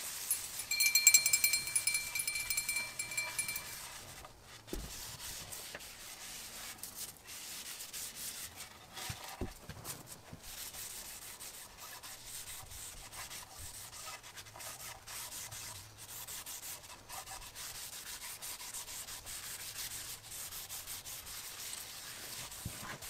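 Gloved hand rubbing and wiping a finish across the surface of a wooden cutting board, a soft continuous scratchy friction with a few light knocks. A loud, steady high ringing tone sounds for about three seconds near the start.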